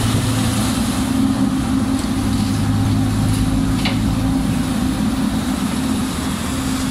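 Diesel engine of a Doosan DX300LCA crawler excavator running steadily, a constant low drone.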